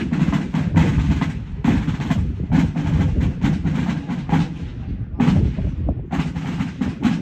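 Drums beaten in quick, uneven strokes.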